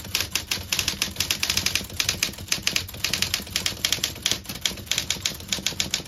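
Smith Corona electric typewriter being typed on fast: a rapid, even run of type-bar strikes, several a second, each key tripping the type bar onto the motor-driven spinning toothed shaft that flings it at the platen. The motor hums low underneath.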